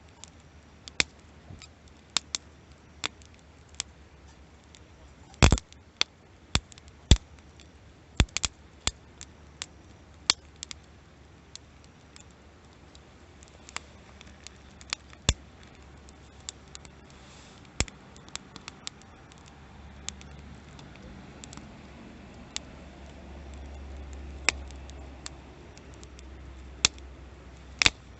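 Wood fire crackling: irregular sharp pops and snaps, the loudest about five and a half seconds in, over a faint low rumble that swells in the second half.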